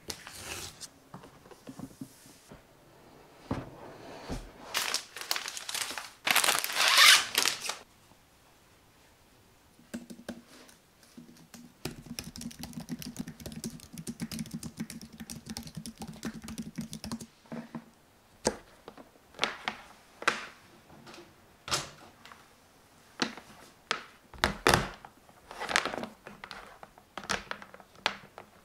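Close handling sounds of unboxing and setting up an iMac: paper and plastic wrap rustling and tearing, loudest about six to seven seconds in; a run of typing on a keyboard over a low hum from about twelve to seventeen seconds; then a string of separate clicks and knocks as cables and a charger are handled on a wooden desk.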